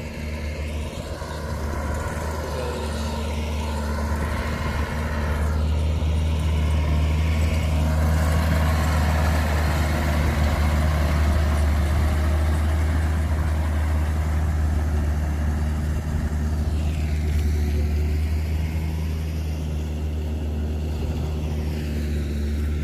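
Farm tractor engine running steadily under load as it pulls a rotary tiller through a flooded rice paddy, a deep continuous drone that grows louder over the first several seconds and eases a little near the end.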